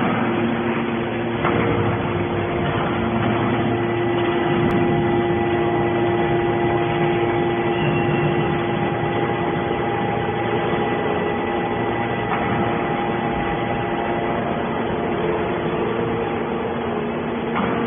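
Hydraulic metal-shavings baler running: a steady mechanical hum from its motor and hydraulic pump, with a few steady tones over a low rumble and a faint knock now and then.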